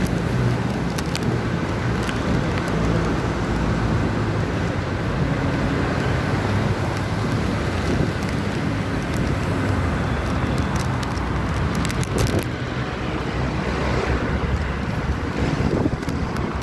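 Steady city street traffic noise: a continuous rumble of passing vehicles.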